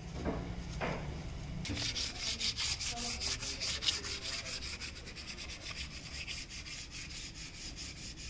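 Hand sanding with a sheet of sandpaper on a gold-painted wooden calligraphy cutout. Quick back-and-forth scratching strokes, several a second, begin about two seconds in and keep an even rhythm.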